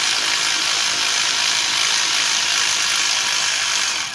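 Power drill running steadily to spin out a bolt on the AC compressor, stopping near the end.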